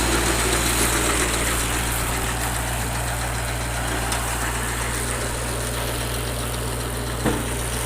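Tractor engine running steadily, with one short knock near the end.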